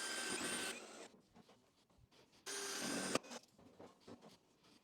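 Cordless drill-driver running in two short bursts, driving screws: the first burst stops under a second in, the second runs briefly about two and a half seconds in. Light knocks and handling sounds come between the bursts.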